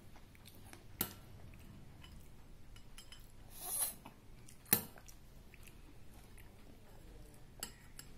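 Metal spoon clinking against a small ceramic bowl while eating: a sharp clink about a second in and a louder one near the middle, with a brief scraping sound between them and a faint tap near the end.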